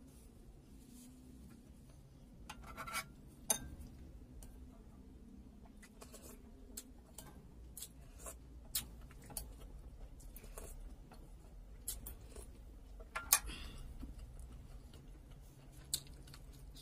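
Close-miked eating sounds: wet mouth clicks and smacks from chewing, scattered sharp ticks, and occasional clinks of a metal spoon against a glass bowl, with a couple of short louder bursts.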